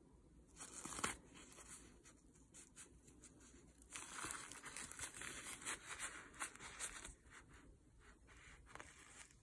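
Faint rustling and crinkling as hands handle a doll's knitted clothes and a paper tissue, with a short burst about a second in and a longer stretch of rustling from about four to seven seconds in.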